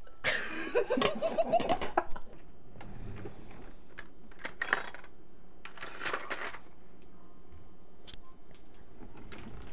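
Metal cutlery clinking and rattling as a hand rummages through a kitchen utensil drawer, in a few separate bursts with single clinks between. A short burst of voice comes at the very start.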